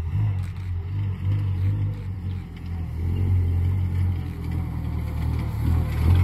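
Vintage car engine running with a deep, steady drone, growing louder near the end as the car approaches.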